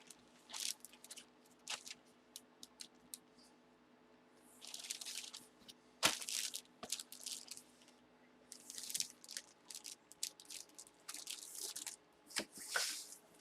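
Cards and plastic packaging being handled: short crinkling rustles and small clicks and taps, in scattered bursts.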